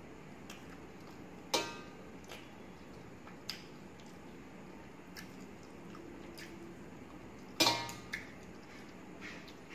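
Eating rice by hand from a metal plate: two ringing metallic clinks on the plate, about a second and a half in and again near the end, with faint sharp clicks of chewing and handling between.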